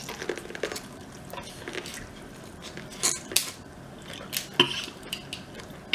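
Wet, squishy handling of sauce-covered seafood-boil food, with light clicks and clinks of utensils and dishes in scattered short bursts.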